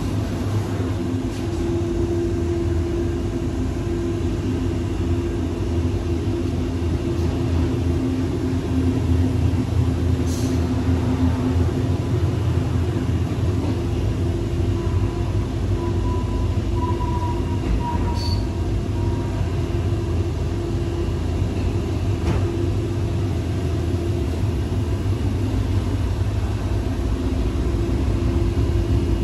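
Ride noise inside the RBDe 4/4 I 222 electric railcar under way: a steady rumble of the running train with a hum that fades and returns, and an occasional faint click.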